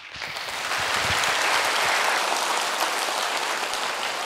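Audience applauding, swelling over the first second and fading out near the end.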